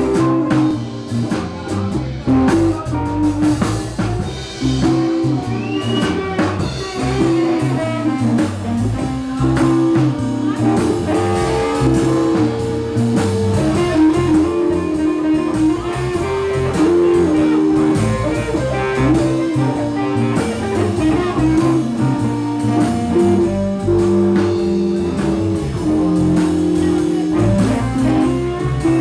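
Live blues band playing, electric guitars over bass and drums. A lead guitar line of held notes runs over the rhythm, with one note bent upward about six seconds in.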